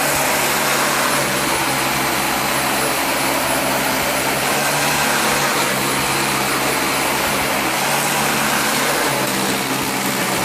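Dyson vacuum cleaner running steadily on thick carpet, its motor a steady hum under a strong hiss of air, with the suction gripping the carpet so hard that the vacuum is tough to push.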